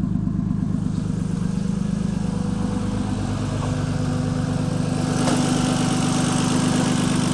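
Turbocharged BMW E46 engine idling steadily. About three seconds in, part of the engine note rises a little in pitch, and a little after five seconds the sound becomes louder and fuller.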